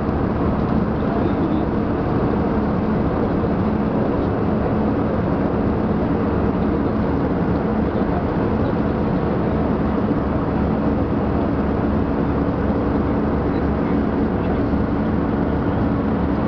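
Airbus A320-200 airliner cabin noise in cruise: the steady, even rush of the jet engines and airflow, with a low steady hum underneath, heard from inside the cabin.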